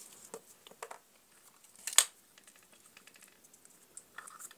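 Faint handling noises from hands working wires and small tools: scattered small ticks and rustles, with one sharp click about two seconds in.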